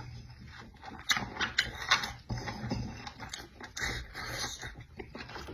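Close-miked chewing: irregular wet smacks and clicks of a mouth eating food.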